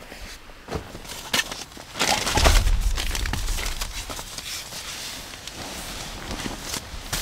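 Rustling and crinkling of outdoor gear being handled, with scattered clicks. From about two seconds in, wind buffets the microphone with a deep rumble.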